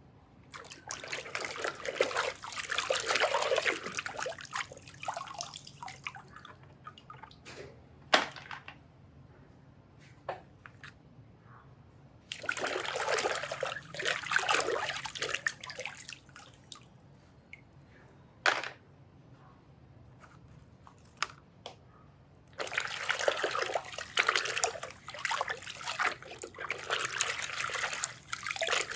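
Water splashing and trickling over plastic toy vehicles as they are rinsed, in three runs of several seconds with quiet gaps. Two short sharp knocks fall in the gaps.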